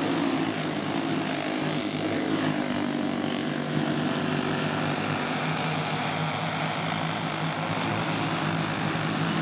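Several flathead go-kart engines racing together on a dirt oval, blending into one steady, overlapping drone.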